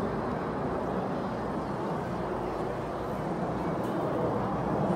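Distant jet engines of a formation of BAE Hawk T1 jets flying overhead, a steady low rumble.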